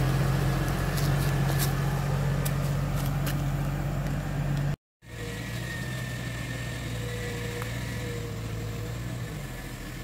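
Off-road vehicle's engine running steadily with a low hum. It breaks off for a moment just before halfway, then carries on more quietly.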